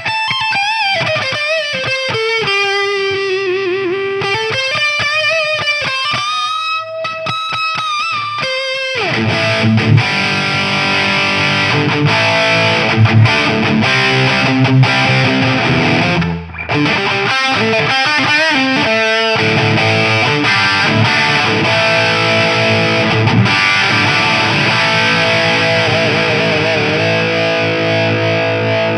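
Electric guitar played through a distorted DIY Mojotone British 800 (JCM800-style) tube amp. It opens with a single-note lead with bent notes, and from about nine seconds in turns to denser distorted chord riffing, with a brief gap around the middle.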